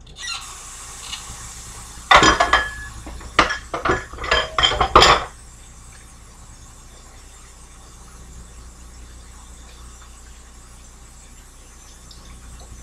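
Rinsing a dishcloth at a kitchen sink: about two seconds in, a bout of knocking and clinking lasting some three seconds, after a faint hiss, then only a low steady background.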